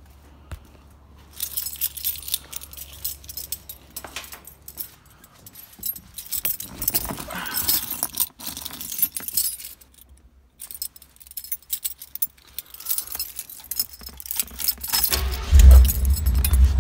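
A bunch of keys jangling in short irregular bursts while being handled. About fifteen seconds in, the 1985 Jeep Grand Wagoneer's AMC 360 V8 starts and settles into a steady cold run.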